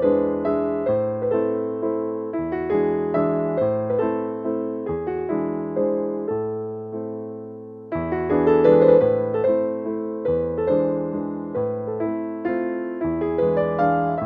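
Gentle background piano music: a melody of struck notes that each fade away, growing quieter toward the middle and then coming back louder about halfway through.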